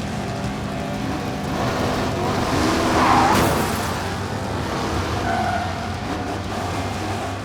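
Car engines revving, with one car passing close about three seconds in.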